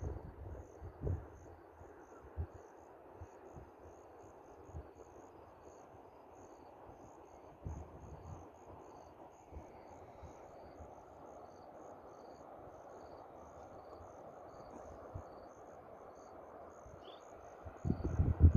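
Crickets chirping in a steady, even rhythm over a constant rush of distant river water, with low bumps of wind on the microphone that grow stronger near the end.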